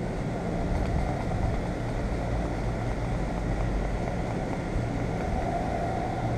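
Steady low background rumble with a faint, thin steady tone in the second half.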